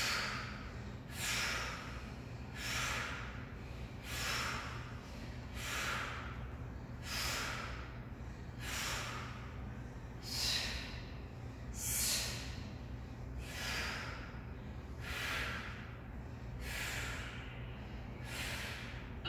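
A woman breathing steadily and audibly while holding a floor stretch, about one breath every second and a half.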